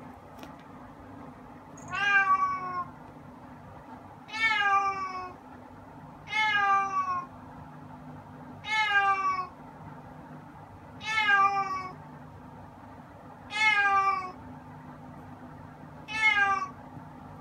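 A silver tabby-and-white cat meowing repeatedly: seven drawn-out meows, each falling in pitch, one about every two and a half seconds.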